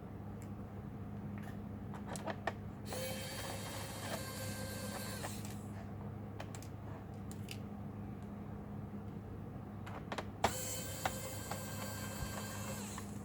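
Small electric screwdriver running twice, about two and a half seconds each time, a steady whine that starts with a click, backing out the laptop's case screws. Light clicks and taps of tools and parts between the runs, over a steady low hum.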